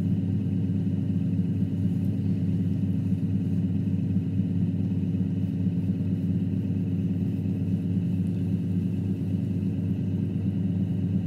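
Electric potter's wheel motor running at a steady speed, a constant low hum with several steady tones.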